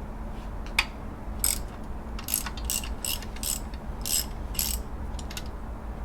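Socket ratchet wrench clicking in a run of short back-swings, about two a second, after a single sharp click, as a bolt on the alternator bracket is worked loose.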